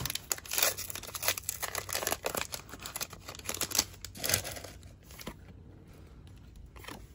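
Foil booster pack wrapper being torn open and crinkled by hand, a dense crackling rustle that dies down about five seconds in.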